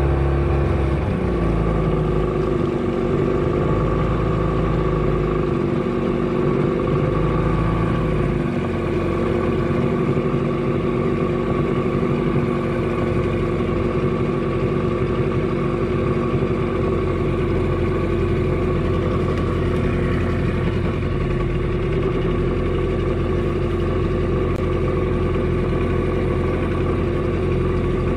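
Small boat engine running steadily at an even speed, as when trolling a lure.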